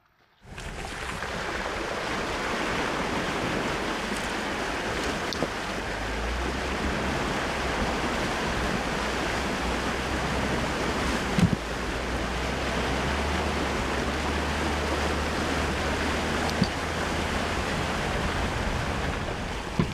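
Jeep Gladiator Rubicon driving through a muddy water crossing, its tyres pushing and splashing through the water, with a steady low engine rumble underneath. There are a couple of short knocks in the middle.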